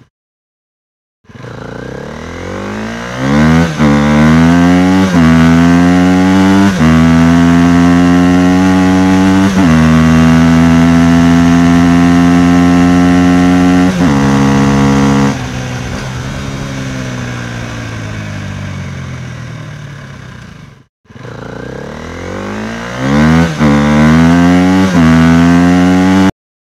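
A vehicle engine accelerating up through the gears: its pitch climbs and drops at each of four gear changes, then holds steady at cruising speed. The throttle eases off in two steps and the engine runs quieter, its pitch slowly sinking as it slows. After a brief break it accelerates through the gears again.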